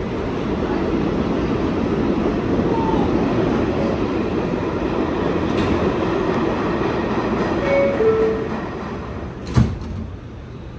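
Steady din of a subway station and a waiting Kawasaki R211 train, then the two-note falling door chime about eight seconds in and the car doors closing with a sharp thump shortly after. After the thump, the noise is heard from inside the closed car and is lower.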